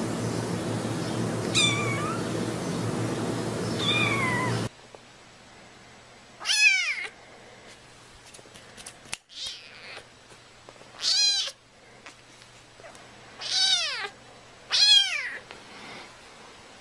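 Kittens meowing: two faint, high meows over a steady background hum in the first few seconds, then, after a cut, four louder meows a couple of seconds apart, each falling in pitch. A few soft clicks come midway.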